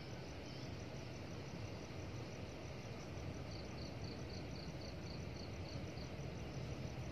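Faint insects chirping in a high, steady pulse, joined for a few seconds in the middle by a second chirp at about four a second, over a low steady rumble.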